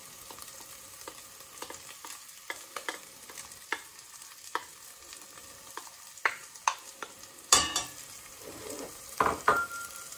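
Chopped onions frying in oil in a stainless steel pot with a steady sizzle, while a spatula stirs in chopped garlic, scraping and clicking against the pot. The loudest knock of the spatula on the pot comes about seven and a half seconds in, and another cluster of knocks, one with a short metallic ring, comes near the end.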